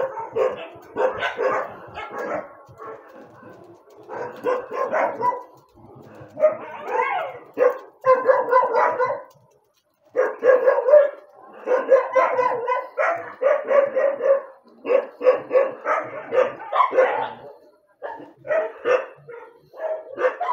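A dog barking repeatedly, in runs of quick barks broken by short pauses.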